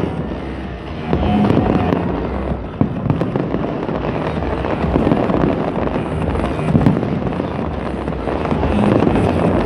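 Fireworks bursting in a steady barrage, with sharp bangs every few seconds over a continuous crackling rumble, and music playing along.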